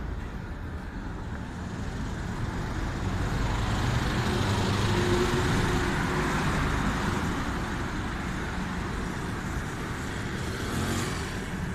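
Road traffic on a city street: cars and a bus driving past, with the noise swelling as a vehicle goes by a few seconds in and then easing off.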